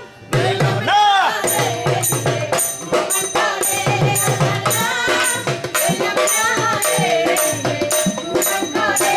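A Bengali folk bandana song performed live: one voice sings a bending, ornamented line over tabla strokes and a bright jingling rattle that keeps a steady beat of nearly three strokes a second. There is a brief dip in the sound at the very start, then the song carries on.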